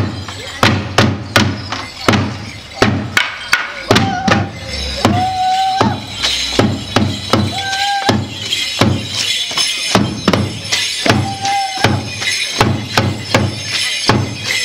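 Border morris dance music: a steady rhythm of drum beats and clashing wooden sticks, with a few short held higher notes over it.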